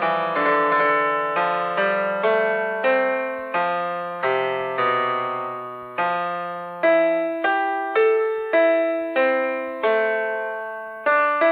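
Background music: a slow melody on a piano-like electric keyboard, each note or chord struck and left to fade, a new one about every half second to second.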